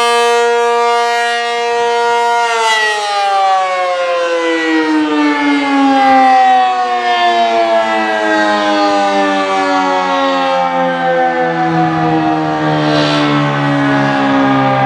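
ACA P-50 tornado siren sounding its steady Alert tone, a chord of several pitches, then about two and a half seconds in it begins winding down, its pitch falling slowly and steadily as the siren is shut off at the end of the signal.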